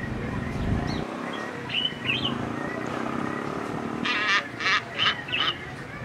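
Silvery-cheeked hornbill giving four loud, harsh calls in quick succession about four seconds in, with small birds chirping faintly before them.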